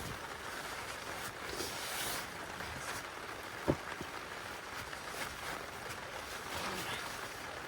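Heavy rain falling steadily, with one sharp click about four seconds in.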